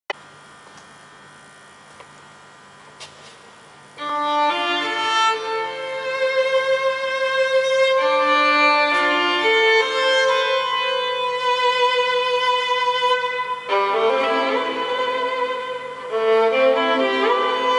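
Solo bowed violin playing a slow melody of long, held notes, coming in about four seconds in after faint hiss, with a slide up in pitch near the end.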